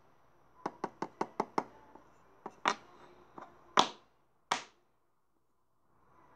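Small hard objects clicking and knocking: a quick run of about five light, evenly spaced clicks, then a few louder, irregular knocks, the two loudest just before and after the four-second mark.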